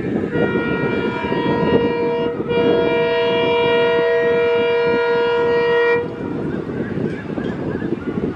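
Diesel locomotive's horn sounding two blasts, a short one and then a longer one of about three and a half seconds, over a steady low noise from the approaching train and wind.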